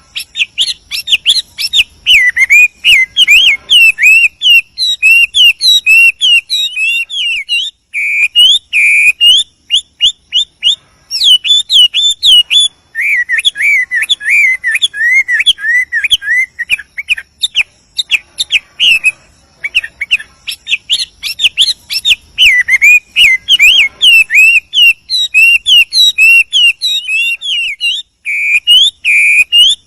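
Male Chinese hwamei singing a long, rapid, continuous run of varied whistled phrases, with a few brief pauses.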